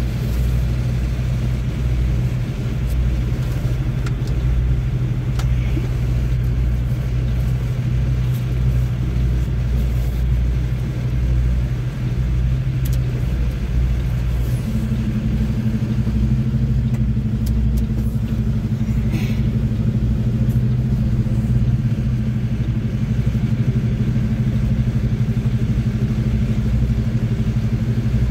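Semi-truck diesel engine running steadily, heard from inside the cab as a low drone. A second, higher hum joins about halfway through.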